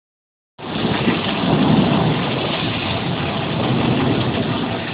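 Heavy rain pouring down in a downpour, a steady dense hiss with a low rumble under it, starting about half a second in.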